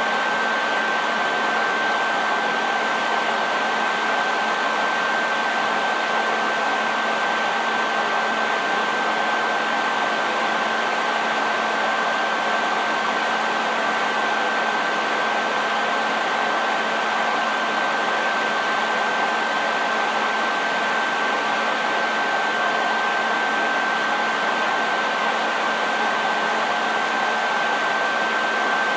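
Hair dryer running continuously with a steady airflow rush and a constant high motor whine over it, with no changes in speed.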